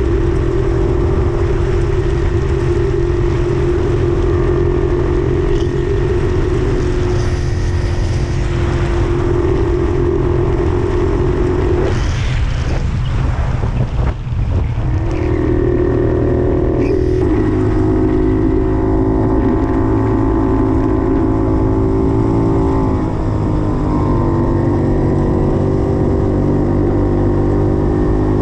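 Puch 250 TF's two-stroke split-single engine running steadily under way, with wind rushing over the microphone. About twelve seconds in the engine note drops away for a couple of seconds, then comes back, and its pitch shifts again at around seventeen and twenty-four seconds.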